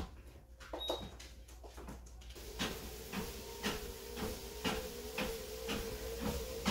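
Home treadmill: a short high beep about a second in, then the motor starts about two and a half seconds in with a steady whine, and footsteps fall on the moving belt at a walking pace of about two a second.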